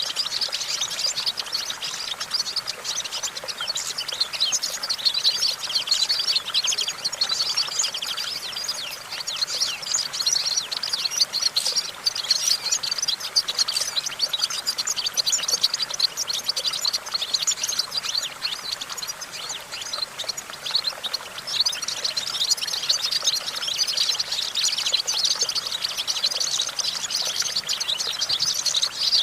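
European goldfinch singing: a continuous run of rapid, high twittering chirps without a pause.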